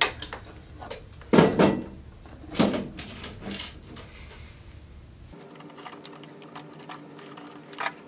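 Hands handling bare copper ground wires in a metal electrical box: a few scattered clicks and rustles, the loudest about a second and a half in, with more small clicks near the end.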